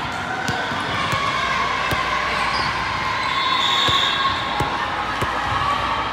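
Volleyballs bouncing on a hard gym floor, irregular thuds about every half second, over steady crowd chatter echoing in a large hall.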